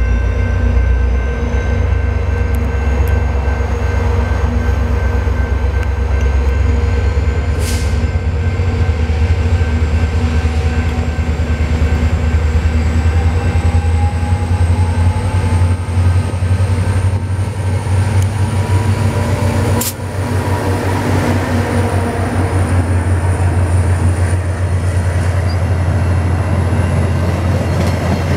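VIA Rail F40PH-2 diesel locomotive pulling a passenger train away from the station and past, its turbocharged EMD two-stroke V16 engine giving a steady heavy low drone, followed by the coaches rolling by. A thin high whine rises slowly throughout, and two sharp clicks come about a third and about two-thirds of the way through.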